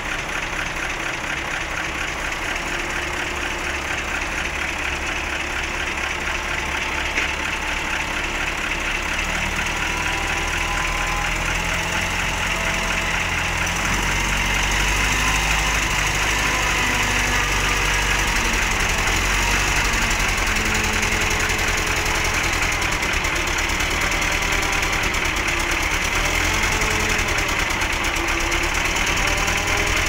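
Caterpillar 926E wheel loader's diesel engine working under load as it drives up onto a tilted trailer deck, growing louder about halfway through as it climbs.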